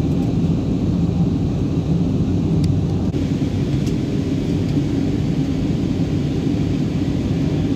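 Steady cabin noise of an Airbus A320 on approach, heard from inside the passenger cabin: the engines and the air rushing past the fuselage make a low, even noise that doesn't change.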